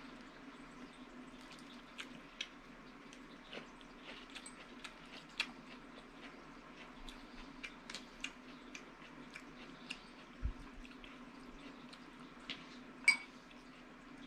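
Eating sounds close to the microphone: chewing and lip smacks, with fingers picking at lettuce salad on a paper plate. They come as scattered small clicks, with a sharper one near the end, over a steady low hum.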